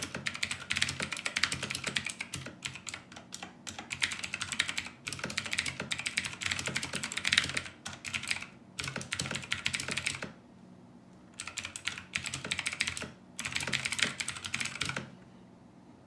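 Fast typing on an OMOTON MK201 tenkeyless mechanical keyboard with clicky Outemu Blue switches: a dense stream of key clicks, with a short pause about two-thirds of the way through, stopping about a second before the end.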